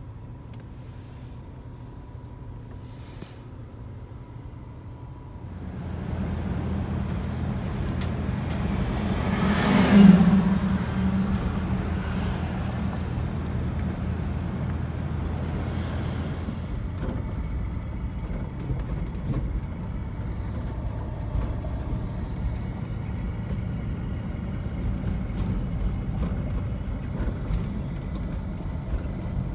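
Toyota 4Runner driving through city streets, heard from inside the cabin: a steady low engine and road hum. It is quieter for the first few seconds and grows louder about five seconds in as the SUV gets moving. A brief loud swell of traffic noise peaks about ten seconds in.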